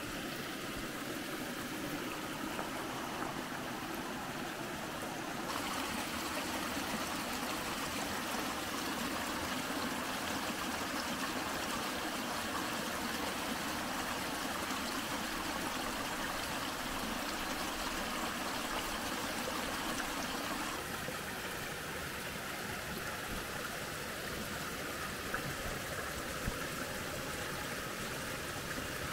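Rainwater runoff running over sandy ground, a steady rush and trickle of flowing water that grows louder about five seconds in and eases again about twenty seconds in.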